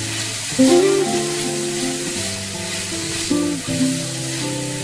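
Beef liver and bell pepper strips sizzling in a frying pan as a spatula stirs them, under background music.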